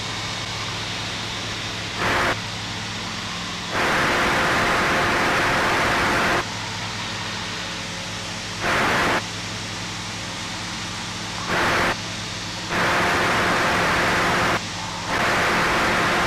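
Ikarus C42 microlight's engine at take-off power heard through the headset intercom, a steady hum under hiss. The intercom squelch keeps opening and closing, so loud bursts of hiss switch on and off abruptly, about six times.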